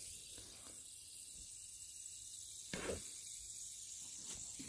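Water running gently from a garden hose spray nozzle laid on the soil: a faint, steady hiss, with one soft knock just under three seconds in.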